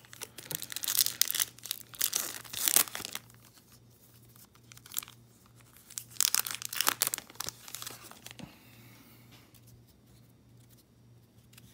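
A baseball card pack wrapper being torn open and crinkled by hand, in several bursts of tearing and crackling over the first seven seconds, then only faint rustling.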